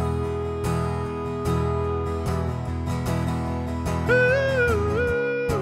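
Acoustic guitar strummed steadily, with a wordless sung 'ooh' melody joining about four seconds in.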